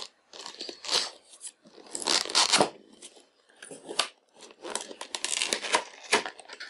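Cardboard headphone box being opened by hand: the packaging scrapes, rustles and tears in irregular bursts as the printed outer sleeve is slid off the inner box. The loudest burst comes about two seconds in, and there is a sharp click about four seconds in.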